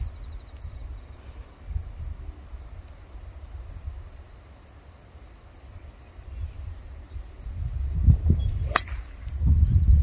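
Wind rumbling on the microphone, growing stronger near the end, and about nine seconds in a single sharp crack of a golf club striking the ball off the tee.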